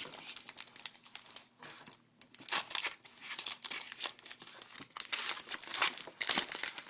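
Crinkling and tearing of a trading-card pack wrapper being opened and handled, in irregular crackly bursts, loudest about two and a half seconds in.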